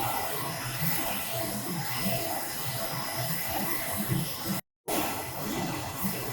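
Focus Alpha Max 6250 UV flatbed printer running while it prints: a steady whir and hiss from its fans and vacuum table, with the carriage at work. The sound cuts out completely for a moment about four and a half seconds in.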